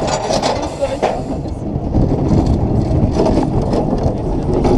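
Amusement ride moving at height, with wind rushing over the onboard microphone: a rumbling noise that grows stronger about two seconds in as the ride picks up its swing.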